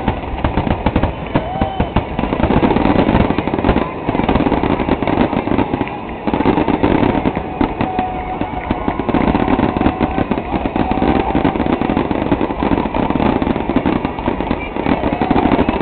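Fireworks finale barrage: shells bursting in a dense, unbroken run of bangs and crackles, one on top of another, with a brief lull about six seconds in.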